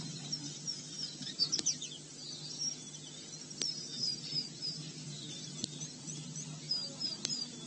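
Wild birds chirping in the bush, many short high calls that sweep downward, over a steady low hum. A sharp click sounds about every two seconds.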